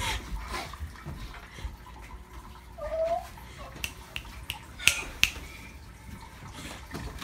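Footsteps on a hardwood floor with a few sharp clicks, and one short rising squeak about three seconds in.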